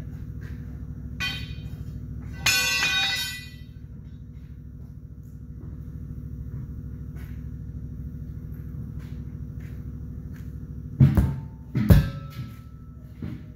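A steady low machine hum throughout. About two and a half seconds in, a sharp metallic clang rings out for about a second, like a steel tyre tool hitting metal. Near the end come two heavy thumps about a second apart.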